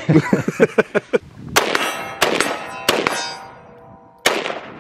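Shots from a 7.62 mm FAL rifle at a steady pace, each followed by the ringing clang of struck steel targets, about five in all with a pause before the last. A quick run of softer knocks comes first.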